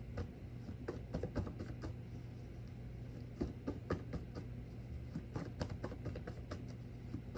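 Tarot cards being handled and shuffled: a run of small, irregular clicks and taps over a low, steady hum.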